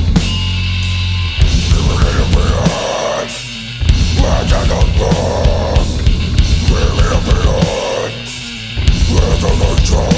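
Heavy metal band playing live: distorted guitars, bass and drums with fast, driving kick-drum strokes. The heavy low end drops back briefly twice, a little over three seconds in and again about eight seconds in, before the full band comes back in.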